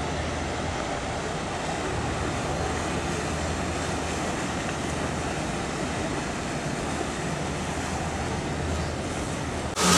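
Boat engine running steadily under a rush of water and wind noise, heard from aboard a riverboat. Near the end the sound jumps suddenly louder.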